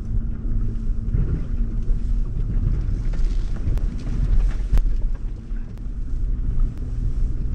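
Land Rover wading slowly through deep water: a steady low engine rumble with water washing against the body, and a few sharp knocks.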